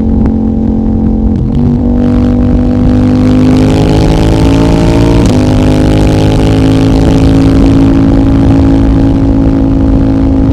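CFMOTO 800NK's parallel-twin engine, decatted and running through the stock muffler, pulling under load: the engine note climbs steadily, breaks briefly for quick gear changes about one and a half seconds in and about halfway through, then holds at a steady pitch.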